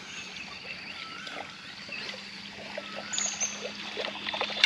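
Quiet on-the-water ambience: a few short bird chirps over scattered small water ticks and drips, with a steady low hum underneath.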